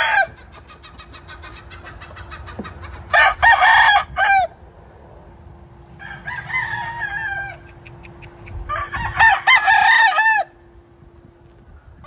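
Gamefowl roosters crowing: three crows, a loud one about three seconds in, a fainter one around six seconds, and another loud one about nine seconds in.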